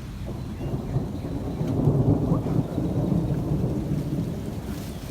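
Thunder rumbling over steady rain. The rumble swells about a second in and fades away near the end.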